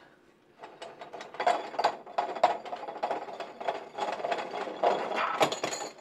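Irregular clicking and rattling of small metal safe-lock parts being handled and worked, with no steady motor tone.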